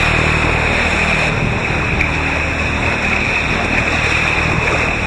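Sea water rushing and splashing along the hull of a racing trimaran moving under sail, with wind on the microphone; a steady rushing noise.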